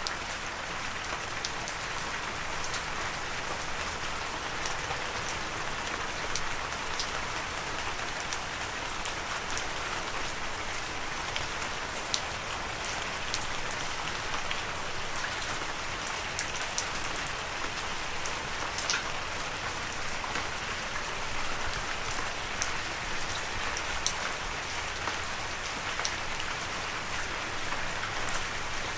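Steady rain: an even hiss of many drops, with scattered sharper ticks of single drops landing.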